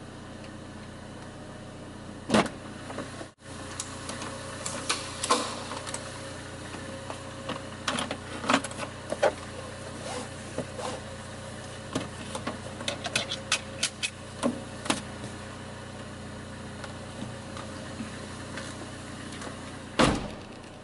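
A seat belt is pulled out and buckled around a plastic pet carrier on a car seat, with scattered clicks, knocks and rustles over a steady low hum. There is a sharper knock about two seconds in and a louder thump near the end.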